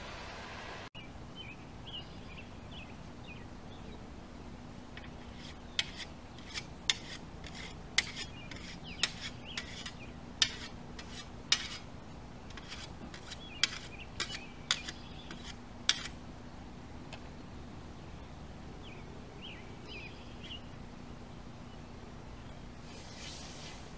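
A scythe blade being whetted with a stone: a run of about fifteen quick, sharp, ringing strokes in the middle. Near the end comes a soft swish of the scythe cutting grass.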